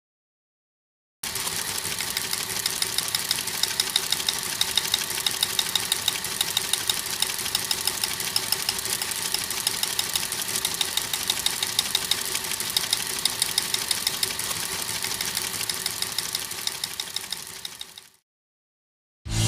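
A small machine's steady, rapid mechanical clatter of many ticks a second over a faint hum. It starts abruptly about a second in and fades out near the end.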